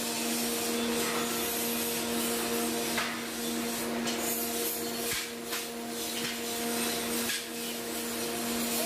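Electric grinder running with a steady hum while grinding steel, the rasping noise growing stronger in short passes every second or so.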